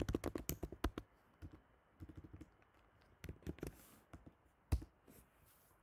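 Computer keyboard keystrokes in several short clusters, then one louder single key press about three-quarters of the way through.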